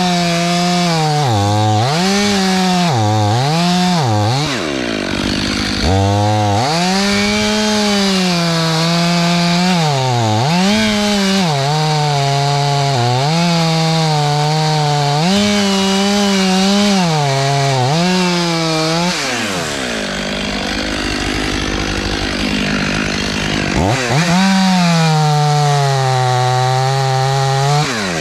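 Chainsaw running hard and cutting into a white oak trunk. Its pitch keeps dipping and recovering as it bogs down in the cut. A few seconds past the middle it drops lower for about four seconds, then revs back up.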